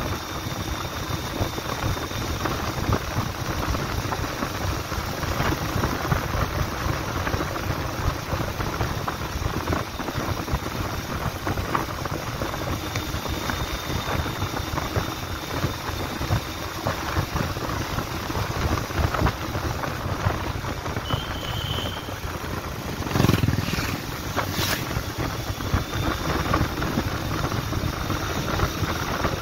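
Bajaj Pulsar 150's single-cylinder four-stroke engine running steadily at cruising speed, heard from the rider's seat and mixed with wind rushing past the microphone. Near the end come two brief knocks, the first one the loudest moment.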